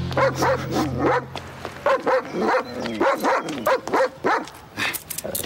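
German Shepherd dog barking and yelping in quick short calls that bend up and down in pitch, about three a second. A low steady hum underneath stops about two seconds in.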